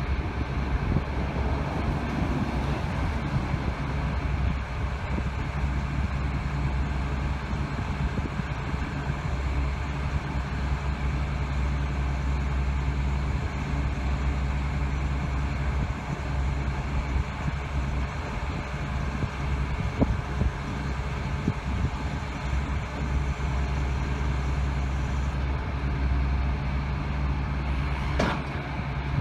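Rubble Master RM 90GO! tracked impact crusher's engine running steadily as the machine manoeuvres on its crawler tracks under remote control. A brief rising squeal comes about a second before the end.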